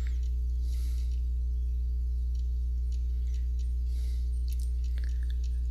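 Steady low electrical hum with a ladder of overtones, unchanging throughout, with a few faint clicks and soft scrapes over it from the brush working on the canvas.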